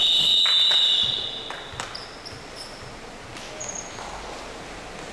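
A shrill, steady signal tone that steps up in pitch and cuts off about a second and a half in, marking the end of the basketball game as the clock reaches zero. It is followed by scattered knocks and a few short squeaks from the court.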